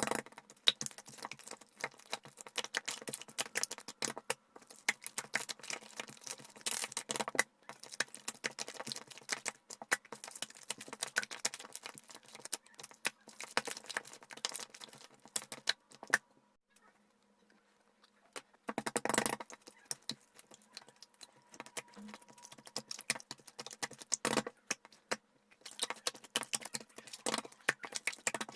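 Clear slime being squeezed and stretched in the hands, with dense runs of sticky clicks and crackles, sped up four times. The clicking stops for a couple of seconds twice.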